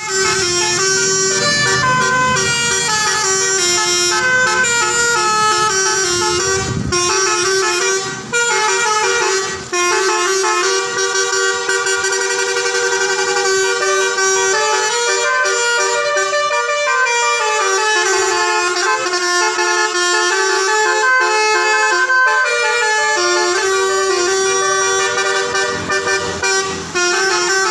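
Bus 'basuri' telolet horn playing a tune: several horn tones sound together and step from note to note in a melody, with short breaks about eight and ten seconds in.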